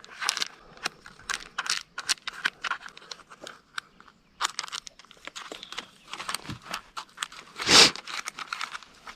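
Plastic packaging of crumbled cheese crinkling and rustling as the cheese is shaken out over a taco: a scattered run of small crackles, with one louder rustle near the end.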